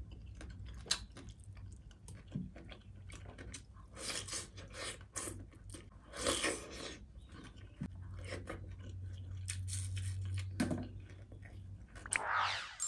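Close-miked chewing and biting of a person eating by hand, with irregular wet clicks and crunches. A short rising sweep comes near the end.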